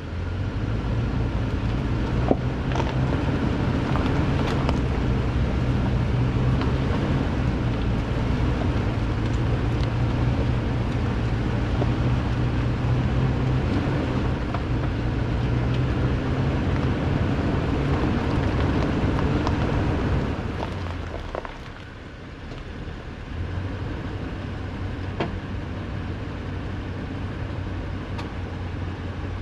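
Toyota Tundra's V8 engine pulling steadily at crawling speed on a rough off-road trail, with scattered short knocks through it. About twenty seconds in the engine eases off, then runs on more quietly.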